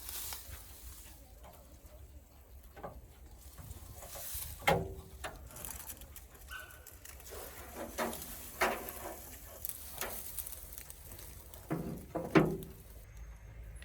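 Scattered knocks and clacks of hand work, about half a dozen, some with a brief ring, the loudest near the end, over a low steady hum.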